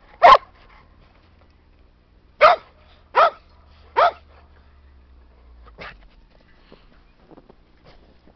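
A dog barking in single barks: one at the start, then three in a row about three-quarters of a second apart from about two and a half seconds in, and a fainter one near six seconds in.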